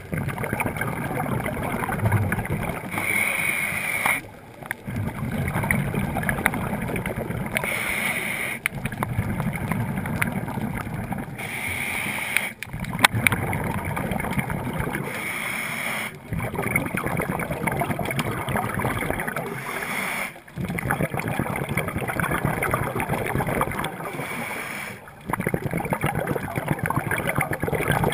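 Scuba regulator breathing heard underwater: a hissing inhale through the regulator every few seconds, each followed by a long rush of exhaled bubbles.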